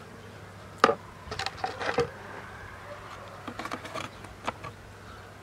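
Scattered knocks, taps and scrapes of hive parts as a top feeder and cover board are set onto a small mini-plus beehive, with one sharp knock about a second in.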